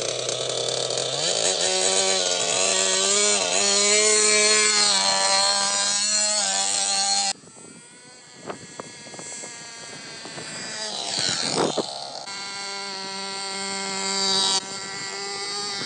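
Small minibike engine running with a steady buzz that steps up in pitch about a second in, cut off abruptly about 7 s in. Then a quieter stretch with a rising-and-falling sweep like a pass-by near 11–12 s, and the engine buzz running steadily again after.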